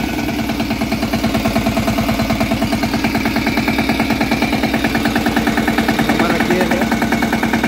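The 16 HP single-cylinder water-cooled diesel engine of a DK Champion 160DI mini tractor idles just after starting, with a rapid, even beat of firing pulses.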